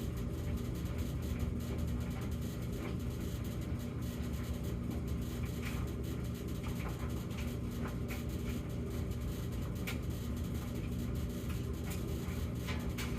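Samsung gas dryer running normally: a steady motor-and-drum drone without the intermittent humming, with scattered light ticks.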